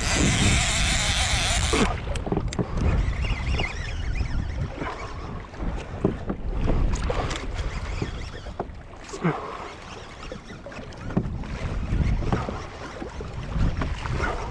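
Fishing reel drag buzzing as a hooked big fish pulls line, stopping abruptly about two seconds in. Then water slapping around the kayak and wind on the microphone, with scattered knocks from handling the rod.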